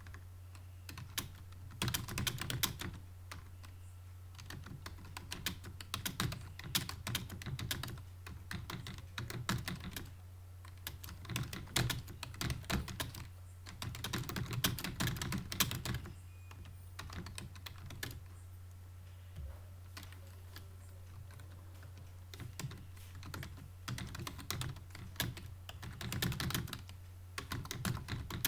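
Fast typing on a computer keyboard: dense runs of keystroke clicks in bursts of a second or two, broken by short pauses, over a steady low hum.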